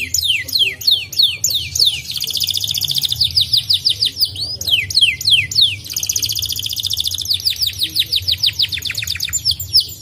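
Domestic canary singing: a fast string of high downward-sweeping whistled notes, about five or six a second. The song is broken twice by rapid rolling trills, about two seconds in and again about six seconds in.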